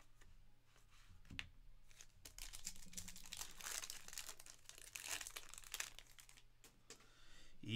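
Foil wrapper of a Panini Certified Football trading-card pack being torn open and crinkled: a dense run of crackling from about two seconds in, thinning out near the end.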